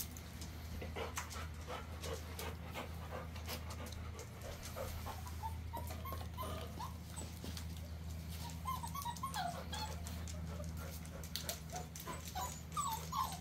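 Weimaraner puppies whimpering and squeaking in short, high, bending cries that come in clusters, loudest near the end, over a steady low hum.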